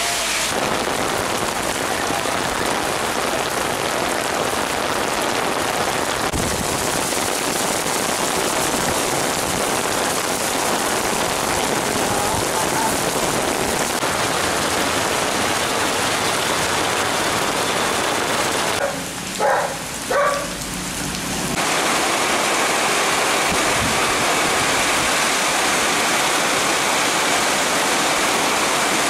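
Heavy rain pouring down, a loud steady hiss. About two-thirds of the way through it drops briefly, and a few short pitched sounds come through.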